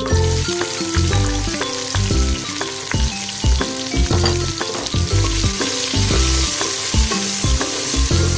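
Sliced onions dropped into hot oil with whole spices in a pot, setting off a sudden loud sizzle right at the start that keeps frying steadily; near the end a spoon stirs them through. Background music with a steady beat plays under it.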